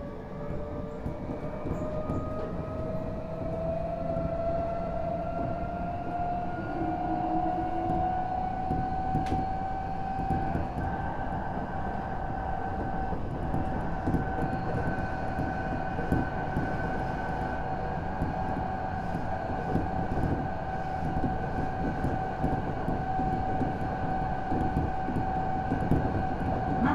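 Odakyu Series 1000 electric train car with Mitsubishi SiC-MOSFET VVVF traction running, heard from inside. The traction whine rises in pitch for about ten seconds as the train gathers speed, then holds at a steady pitch over the steady rumble of wheels on rail.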